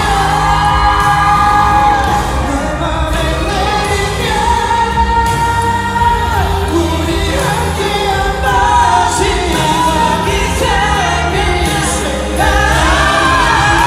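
Male voices singing a pop song live into microphones over amplified backing music, heard from among the concert audience.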